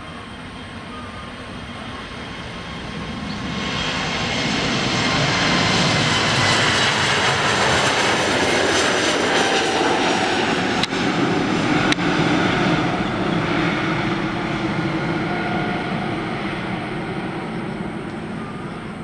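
Airbus A320's twin jet engines at take-off thrust, swelling to their loudest about midway as the airliner rolls past and lifts off, then slowly fading as it climbs away, with a whine running through the roar. Two sharp clicks come near the middle.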